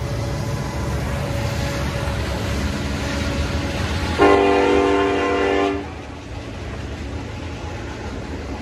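Freight train rolling past, its EMD diesel locomotives and cars making a steady rumble. About four seconds in, a loud locomotive horn sounds one blast of about a second and a half, then cuts off.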